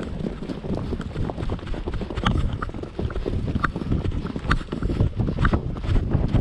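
Hooves of a ridden horse thudding over grassland, irregular and continuous, with a few short high squeaks from the tack.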